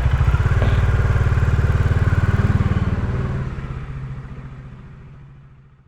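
Bajaj Dominar 400's single-cylinder engine running with a steady, evenly pulsing beat, fading out over the last two to three seconds.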